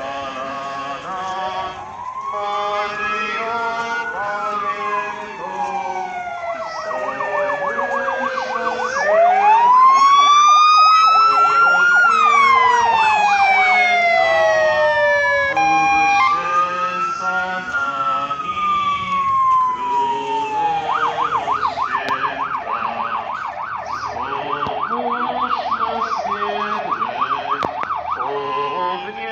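Police sirens: slow rising and falling wails, with two sirens overlapping around the middle, switching to a rapid yelp for the last part. Singing can be heard underneath.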